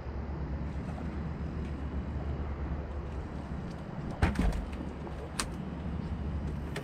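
A striped bass landing on a boat's fiberglass deck: a few heavy thumps close together about four seconds in, followed a second later by a single sharp click, over a steady low hum.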